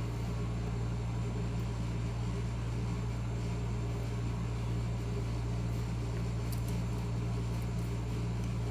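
Steady low hum with a few faint light clicks about six and a half seconds in.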